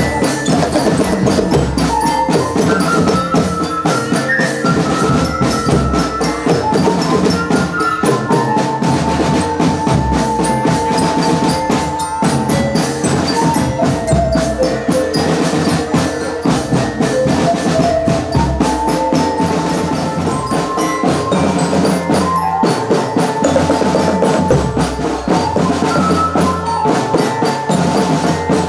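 Music played on mallet percussion and drums, with a steady beat and a melody of struck metal or wooden keys.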